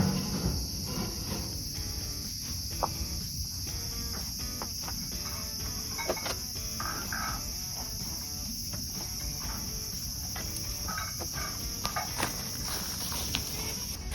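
A steady, high-pitched chorus of insects chirring without a break, with a few faint scattered knocks underneath.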